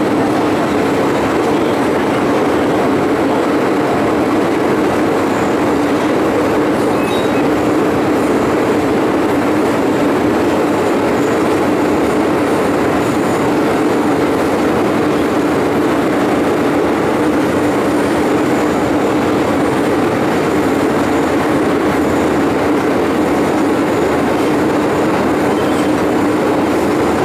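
MTR M-Train electric multiple unit heard from on board while running at a steady speed through the tunnel: a continuous, loud rumble of wheels on rail and traction equipment with a steady low hum, unchanging throughout.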